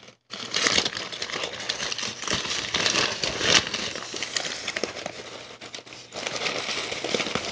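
Rustling, crackling handling noise of a phone's microphone rubbing and knocking against a surface as the phone is set down and shifted about, with many small clicks. It eases briefly about six seconds in, then starts again.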